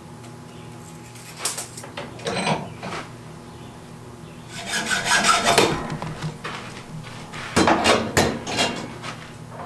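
Hand file rasping on iron held in a leg vise. A couple of single strokes come first, then a long loud stretch about halfway through, then a quick run of strokes near the end.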